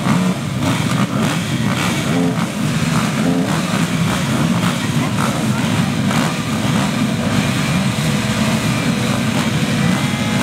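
Many racing quad (ATV) engines running together on a start line, a steady, loud engine din.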